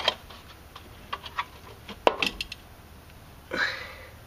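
Clicks and knocks of a Jeep 4.0 valve cover being worked free by hand and lifted off the cylinder head, with a sharper knock about two seconds in and a brief scrape near the end.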